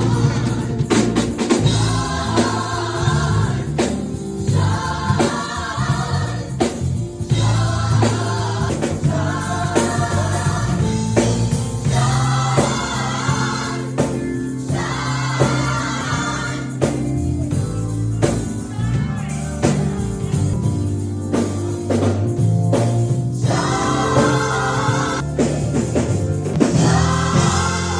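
Gospel choir singing with a band playing: steady bass and drums under group vocals.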